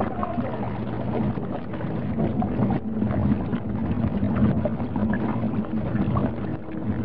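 Washing machine churning a load of clothes in soapy water: water sloshing over a steady low motor hum.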